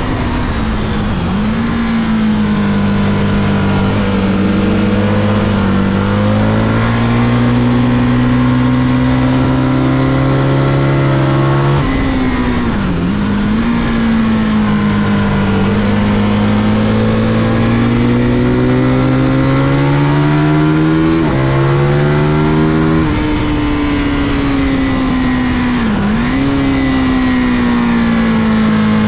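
Race motorcycle engine heard from on board at full throttle on a circuit. Its note climbs steadily through the revs and drops sharply at upshifts about 12 and 21 seconds in, with brief dips where the rider brakes and downshifts for corners.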